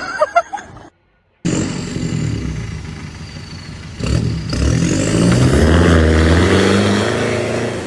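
Off-road vehicle's engine running under load, then revving harder about four seconds in, its pitch climbing for a few seconds.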